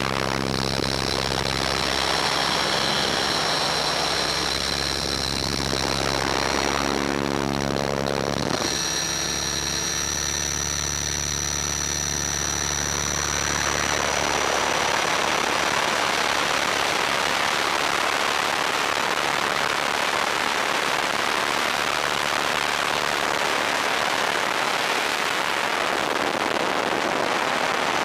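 Align T-Rex 500 electric RC helicopter heard from its own onboard camera: a steady motor and drivetrain whine with rotor noise. About halfway through, as the helicopter descends and gathers speed, a broader rushing sound of wind and rotor takes over.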